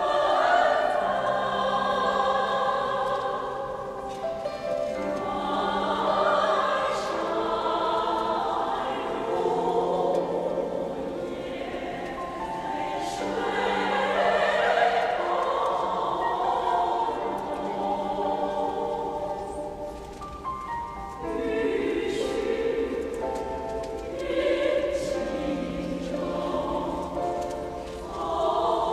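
A choir singing a Chinese song in long held phrases that swell and fade, with short lulls between phrases.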